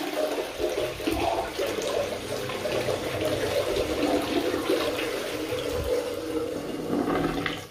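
Toilet flushing: water rushing and swirling through the bowl, carrying away foamy cleaning suds, dying away near the end.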